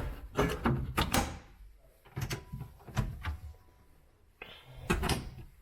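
A boat console's storage door and its latch being worked: a series of sharp clicks and knocks of latch and hinged panel, about six spread over a few seconds.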